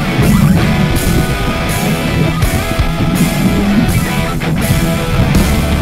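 Loud rock music with electric guitar, playing steadily with a regular beat.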